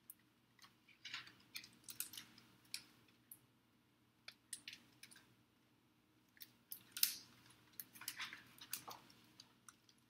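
Faint, scattered clicks and paper rustles of a picture book being handled and its page turned, the loudest rustle about seven seconds in.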